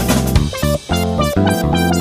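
Upbeat instrumental background music with guitar and keyboard.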